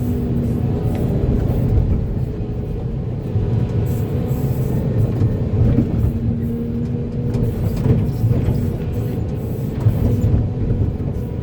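Large excavator's diesel engine running steadily, with a low hum from its hydraulics and a few short knocks along the way.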